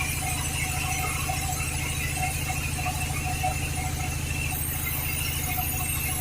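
Sawmill running and cutting mahogany, its engine throbbing steadily underneath the high, steady whine of the saw blade in the wood.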